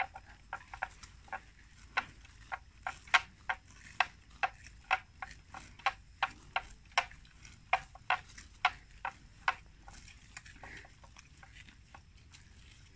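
Water buffalo cropping and tearing grass: a string of short, sharp snaps at an uneven two or three a second, thinning out about nine and a half seconds in.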